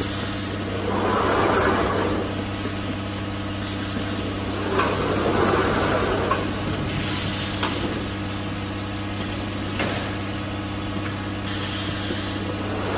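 Automatic jug palletizer running: a steady machine hum, with swells of mechanical whirring and hiss as the overhead gripper moves, lifts a plastic jug and sets it onto the stack. A few sharp clicks are heard along the way.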